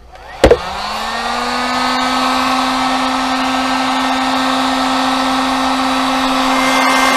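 Handheld electric heat gun switched on with a loud click about half a second in; its fan motor spins up quickly, then runs steadily with a constant hum and rushing air.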